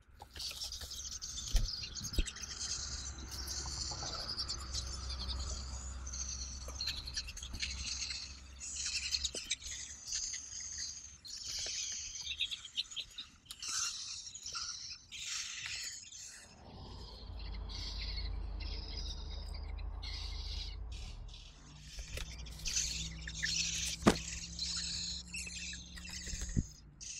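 Eurasian jay nestlings begging at the nest with rapid, high-pitched calls, continuing as an adult arrives to feed them. A few sharp knocks and a low rumble come and go underneath.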